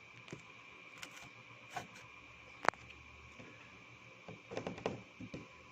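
Light handling sounds as a cable and tools are picked up and moved about: scattered soft taps and rustles, one sharp click about midway, and a quick cluster of taps and rustling near the end, over a faint steady high whine.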